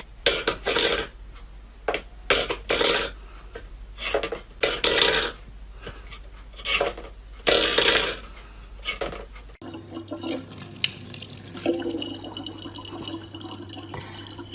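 Water splashing in a sink in short irregular bursts, about one a second. It then changes to a steadier running-water sound with a low hum.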